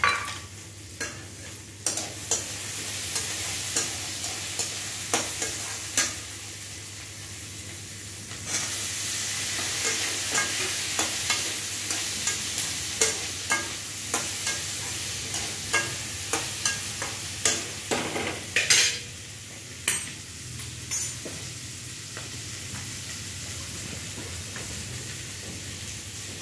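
Food frying and sizzling in a metal kadai on a gas burner while a metal spatula stirs it, with frequent sharp taps and scrapes of the spatula against the pan. The sizzle grows louder about 8 seconds in and eases after about 21 seconds.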